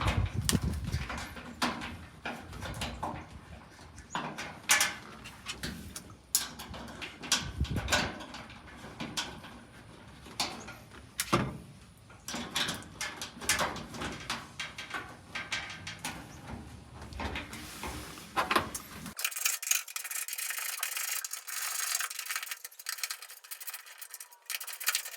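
Hands working a fuel-tank sending unit and its gasket into place: irregular metal clicks, knocks and scraping as the parts are turned and lined up. About two-thirds of the way through, the sound turns thinner, losing its low end.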